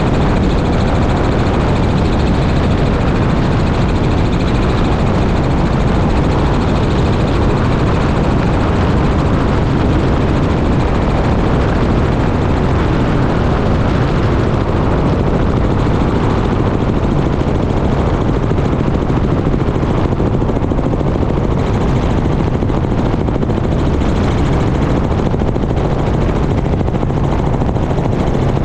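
Helicopter in flight: loud, steady rotor and engine noise, picked up by a camera mounted outside the aircraft. The upper hiss thins a little about two-thirds of the way through.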